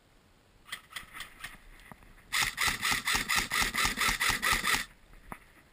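Airsoft guns firing: a few scattered single shots, then a rapid, regular full-auto burst of about two and a half seconds, and one last shot near the end.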